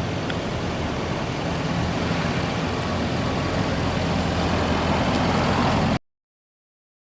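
A 1960 MGA's four-cylinder 1800 engine, running on a single Weber carburettor, runs steadily and gets a little louder toward the end. The sound cuts off abruptly about six seconds in.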